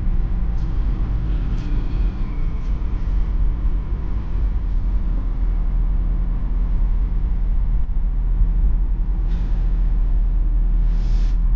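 BMW E46 320d's four-cylinder turbodiesel and tyres heard from inside the cabin while driving: a steady low rumble, with a few faint clicks early and two brief whooshes, the louder near the end.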